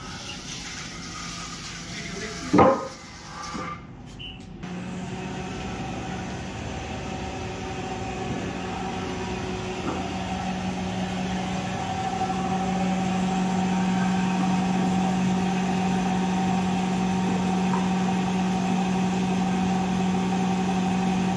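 Belt-driven wood planer running with a steady hum, starting about five seconds in and getting louder about twelve seconds in while a cricket bat blade is pushed across its cutters. Earlier, a brief loud sound with a sliding pitch about two and a half seconds in.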